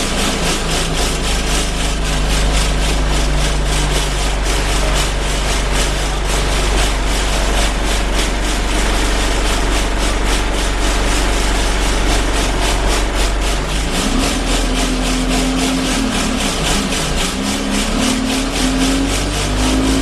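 Alexander Dennis Enviro 200 single-deck bus heard from inside while driving: a steady low engine rumble under a fast, even buzzing rattle of vibrating bodywork and fittings. Near the end the engine note rises and falls a few times as the bus pulls away or changes gear.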